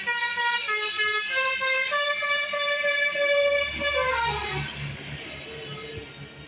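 Bus 'telolet' multi-tone air horn playing a quick stepped melody, its notes then sliding downward together and dying away about four seconds in. A low engine rumble runs underneath in the second half.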